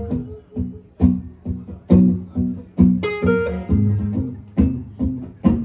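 Acoustic guitar played live in an instrumental passage without singing: chords strummed in a steady rhythm, with a sharp accented strike about once a second.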